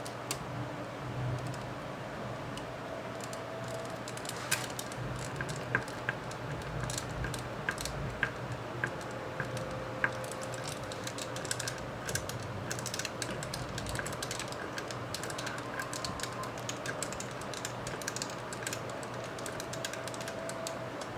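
Scattered small clicks and ticks of a screwdriver driving a slightly oversized screw into a stripped fan-mount screw hole on a graphics card's cooler. A steady low hum runs underneath.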